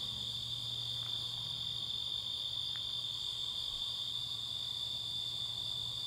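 Steady chorus of crickets, a continuous high-pitched trill that never breaks, with a faint low hum underneath.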